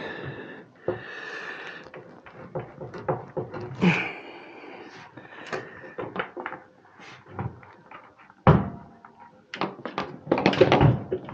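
A water heater tank being manhandled through a narrow doorway: irregular knocks, bumps and scrapes against the door frame and walls, with a heavy thump about eight and a half seconds in.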